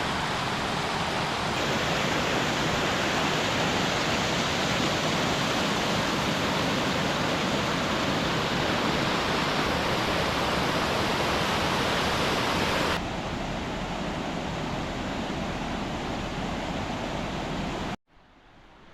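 Steady rushing of a waterfall, Six Fingers Falls, spilling into a creek. The sound shifts abruptly in level about a second and a half in and again about 13 seconds in, then falls away sharply near the end.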